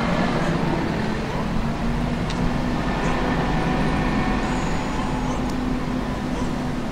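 A vehicle engine running steadily, a constant low hum over street traffic noise.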